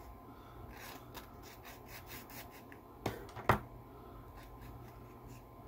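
Faint scratchy rubbing of sandpaper worked by hand over a tiny corroded push-to-talk switch contact. Two sharp clicks come about three seconds in, the second one louder.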